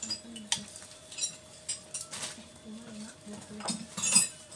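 Several sharp metallic clicks and clinks as a high-pressure gas regulator is pushed onto the valve of a small LPG cylinder and locked in place, the loudest a little after four seconds in.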